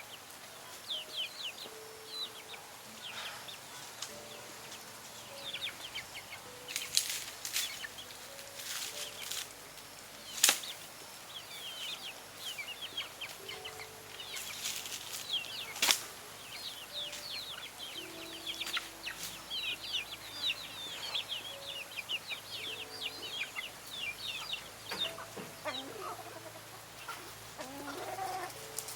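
Birds chirping rapidly and continuously in short high chirps, with chickens clucking near the end. A few short, sharp rustling noises are mixed in.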